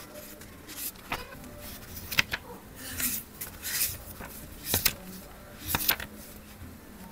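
Pages of a book being flipped through by hand: a series of short papery rustles and flicks, roughly one a second.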